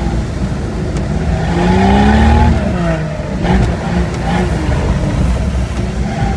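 Jeep Cherokee XJ engine revving under a steady low rumble: it climbs in pitch about a second in, peaks, and drops back, then revs up briefly once more.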